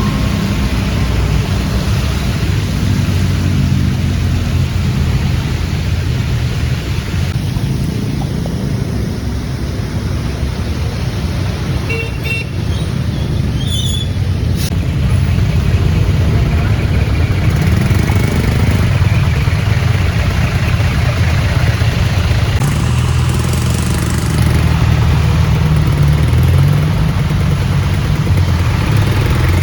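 Road traffic, with vehicle engines running close by in a deep, steady drone. A few short high-pitched beeps come around halfway.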